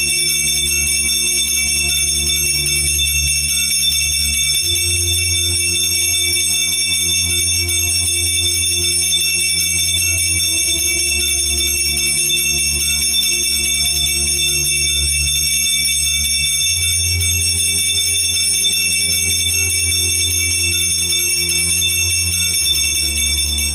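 Altar bells ringing continuously, as at the blessing with the monstrance at Benediction, over low sustained music chords that change every six seconds or so. The ringing cuts off suddenly at the end.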